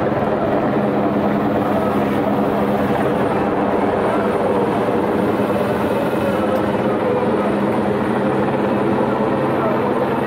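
Steady droning hum of a helicopter hovering overhead, holding an even level throughout.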